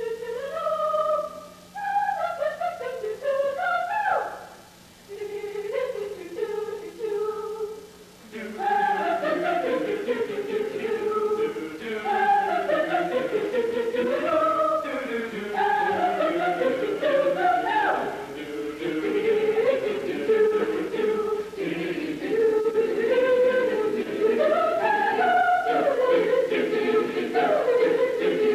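Mixed high school swing choir singing; sparser and uneven for the first eight seconds, then swelling to a fuller, steadily loud sound.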